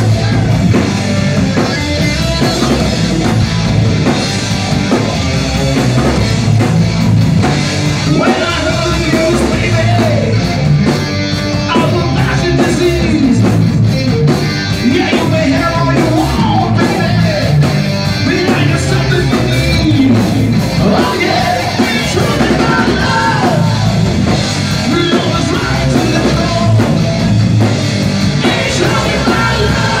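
Live rock band playing loud: electric guitar, bass guitar and drum kit, with a man singing into a microphone.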